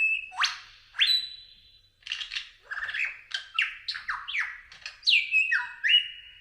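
Bird song of sharp upward-sweeping whistles, then a quick run of short falling notes, ending in a held whistle.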